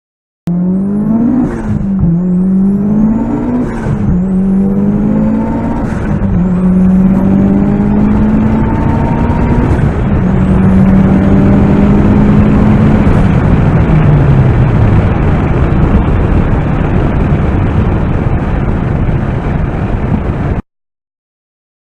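Car engine accelerating hard through quick gear changes, its pitch climbing and dropping back about every two seconds, then holding a steady note before falling away. It starts and cuts off abruptly.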